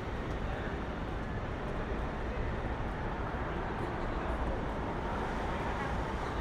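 City street traffic ambience: a steady wash of vehicle noise with a deep low rumble and no single event standing out.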